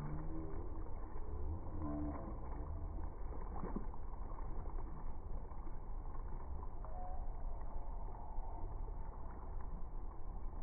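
Swimming-pool water sloshing and splashing over a steady low rumble.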